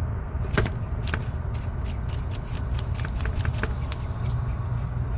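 Alternator pulley on a 2014 Chevy Suburban turned by hand with the serpentine belt off, giving an irregular scraping with scattered sharp clicks from inside. It is the sign of a worn alternator bearing, as the owner suspects. A steady low rumble runs underneath.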